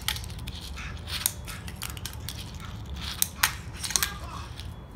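Irregular sharp clicks and clacks of a 34 mm Teak Tuning wooden fingerboard being flicked onto, ground along and landed off a fingerboard rail by hand, the loudest a little past three seconds in.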